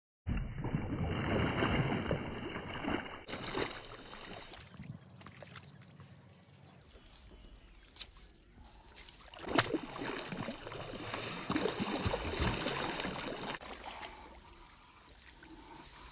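Muddy water sloshing and splashing as a man wades in a shallow channel and wrestles a hooked rohu carp by hand. It comes in uneven surges, loudest at the start and again around the middle, with a few sharp splashes.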